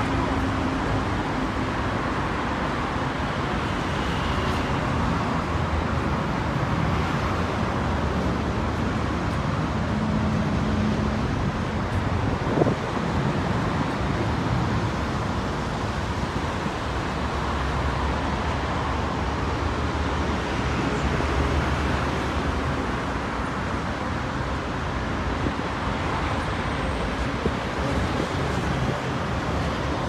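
Steady city street traffic: cars passing with a low engine hum under an even road noise, and one short sharp click partway through.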